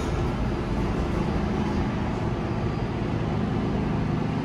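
New York City subway train running, a steady rumble with a faint low hum.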